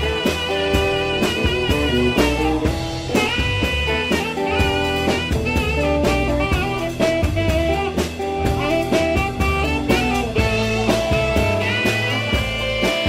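Live blues band playing: a saxophone solo over electric bass, keyboard, guitar and drum kit. The saxophone moves between long notes with vibrato and quicker runs.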